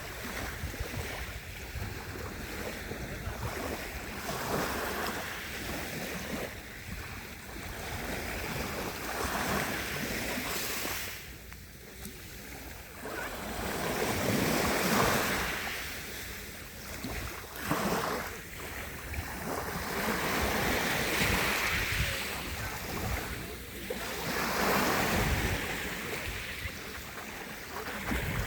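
Sea waves breaking and washing up the shore, swelling and falling back every few seconds, with wind buffeting the microphone.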